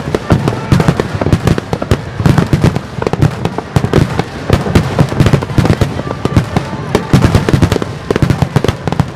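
A rapid barrage of aerial fireworks bursting over the sea, with many overlapping bangs and crackles several times a second.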